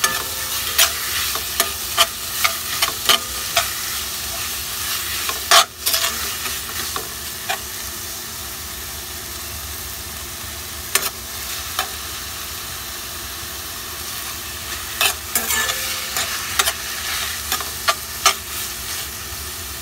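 Minced meat sizzling in a stainless steel wok while a spatula stirs and turns it, scraping and clacking against the pan. The clacks come in clusters, the loudest about five and a half seconds in, with fewer strokes through the middle.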